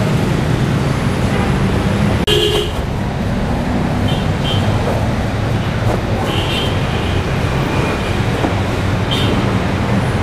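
Steady rumble of passing road traffic, with short vehicle horn toots: one about two seconds in and more near four, six and nine seconds.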